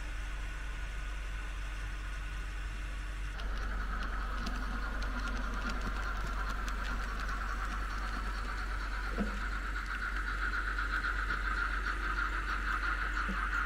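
Märklin H0 model trains running on the layout: a steady whine from the locomotive motors with light clicking of wheels over track joints and points, louder from about three seconds in.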